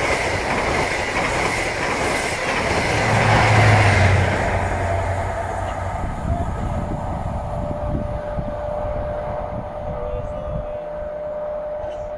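A CrossCountry HST (Class 43 power cars) passing at speed, its rumbling coaches followed by the rear power car's diesel engine, which peaks about three to four seconds in. The rumble then fades as the train moves away down the line, with a few clicks of wheels over rail joints and a thin, steady squeal from the wheels held through the second half.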